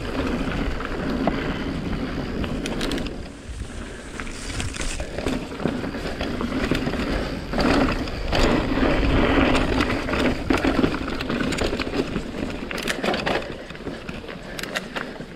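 Mountain bike rolling fast over a dry dirt trail: a steady rumble of knobby tyres on the ground, with quick rattles and knocks from the bike over bumps, loudest a little past the middle.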